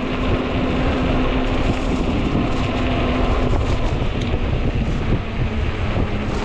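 Strong wind buffeting the microphone while riding a fat-tire e-bike, with a steady low hum through the first half or so.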